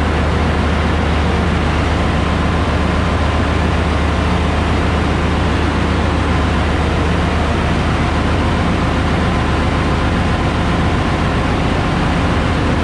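Steady, loud drone of ship's engine-room machinery: a deep hum under an even mechanical noise, unchanging throughout.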